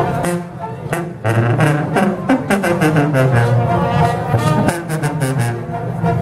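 Brass band music: several brass instruments play over a strong low brass bass line, with evenly spaced drum and cymbal hits.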